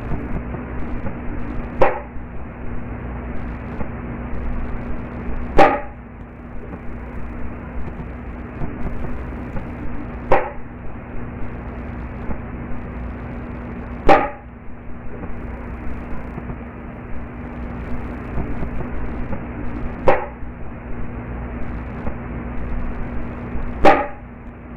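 Six sharp, loud knocks a few seconds apart over a steady low hum. The knocks sound like wood, likened to stacked wooden boards falling over or a wooden bat striking.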